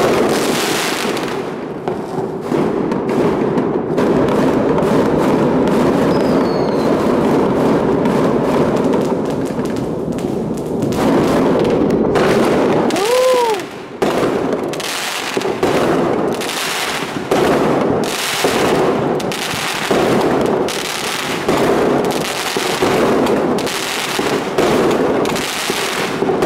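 Aerial fireworks going off without a break: dense crackling and a rapid string of bursts. About halfway through there is a brief whistle that rises and falls.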